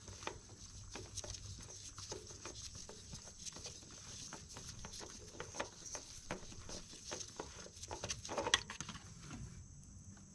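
Faint, irregular patter of engine oil dripping from the oil filter onto newspaper and into a drain pan as the filter is unscrewed by hand, mixed with small handling clicks, and one sharper click about 8.5 seconds in. A faint steady high hiss underneath.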